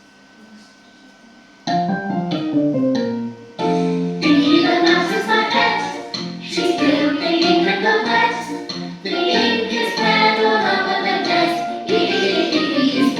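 A children's song with singing over a backing track, starting suddenly about two seconds in after a quiet moment.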